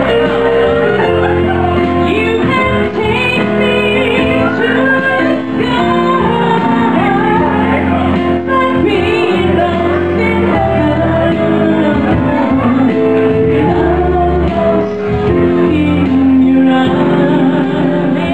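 A woman singing a slow pop ballad live into a microphone over keyboard accompaniment with sustained chords.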